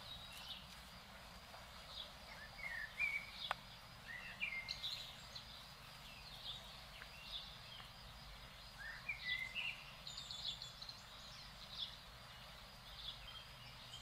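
Faint birdsong from small songbirds: scattered short chirps and quick rising whistled notes, over a steady faint outdoor hiss.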